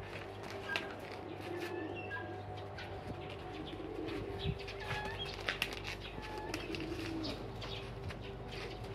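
Pigeons cooing in drawn-out, wavering calls, with short high chirps and a few light clicks in between.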